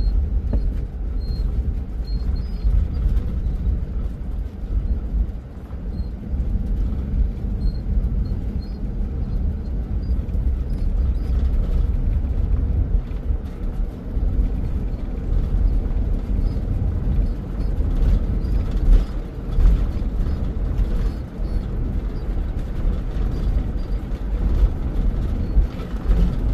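Steady low road and engine rumble inside a vehicle being driven along a paved two-lane highway.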